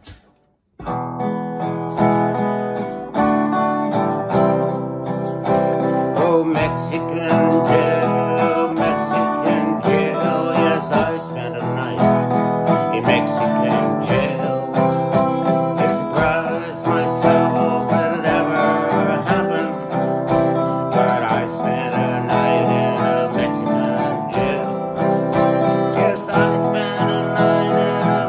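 Acoustic guitar strummed, starting about a second in, with a man singing along.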